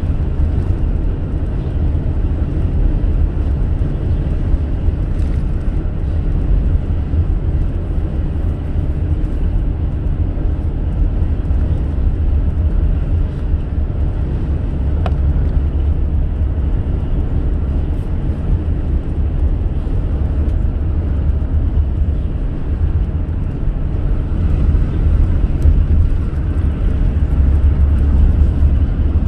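A car driving at speed, giving a steady low rumble of road and engine noise.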